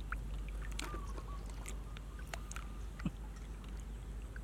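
Shallow muddy water sloshing and dripping with small splashes as hands grope in it for fish.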